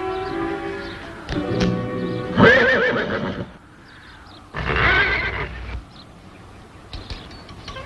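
A horse whinnies twice, once about two and a half seconds in and again just under five seconds in, each a loud, quavering call, over background music.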